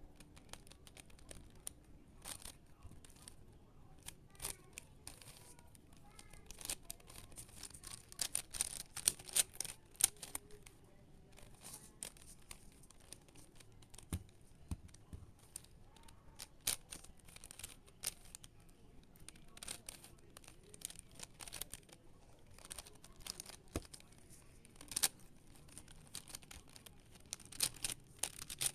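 Plastic Rubik's cube being turned by hand: a run of quick, irregular clicks and clacks, coming thickest in flurries about eight seconds in and near the end.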